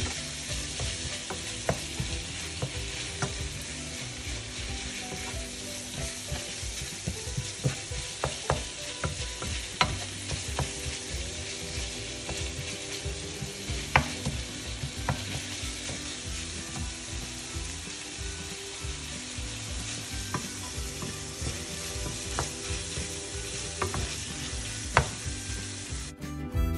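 Ground pork sizzling steadily in a frying pan while a wooden spatula stirs it, knocking and scraping against the pan now and then.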